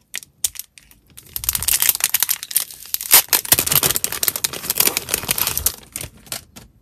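Clear plastic photocard sleeve crinkling and crackling as it is pulled open and the card slid out. A few light clicks come first, then about four seconds of dense crinkling, then scattered clicks.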